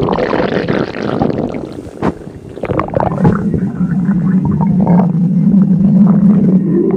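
Stomach grumbling: bubbly gurgles with a few sharp pops in the first half, then a long, low, steady growl lasting about three seconds.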